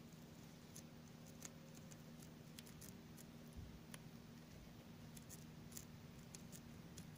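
Guinea pig chewing fresh clover: faint, irregular crisp clicks as it bites and munches leaves and stems, over a low steady hum.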